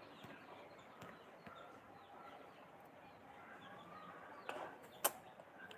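Faint chirping of small birds in the background, many short high chirps, with a single sharp click about five seconds in.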